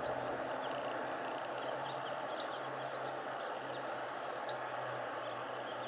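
Outdoor background of steady hiss and low hum, with small birds twittering faintly and one bird giving a short, sharp high call about every two seconds.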